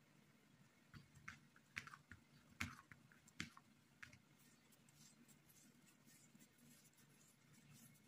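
Hands working soft bread dough on a smooth countertop, pulling off a piece and rolling it into a ball: a handful of quiet, sharp taps and clicks in the first half, over a faint low hum.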